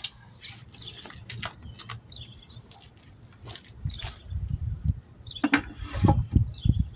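Knocks and rustling as a tire and wheel is lifted and set down onto a bubble wheel balancer, with sharper knocks about five and a half to six seconds in as it seats. Birds chirp now and then in the background.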